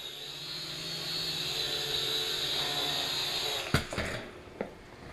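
Syma X5C-1 quadcopter's small electric motors and propellers whirring steadily in flight, growing slightly louder. About three and a half seconds in there is a sharp knock and the whine stops, followed by a couple of light knocks.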